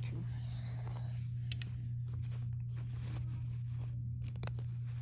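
A few light clicks and rustles of plastic Lego pieces being handled and pressed together, a couple of sharp clicks about one and a half seconds in and one more near the end, over a steady low hum.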